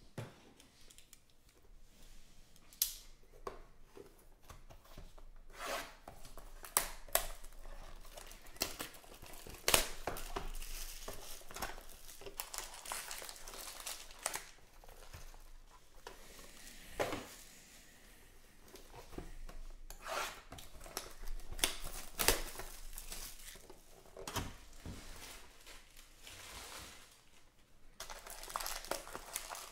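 A 2020 Panini Rookies & Stars football hobby box being torn open by hand, and its foil-wrapped card packs crinkling and rustling as they are pulled out and stacked. The sound comes as irregular crackles and snaps, with denser rustling several times.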